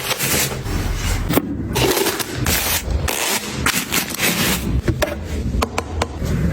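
Close-up handling sounds of items being moved and arranged: scraping and rubbing, with a series of sharp clicks and taps as things are set down.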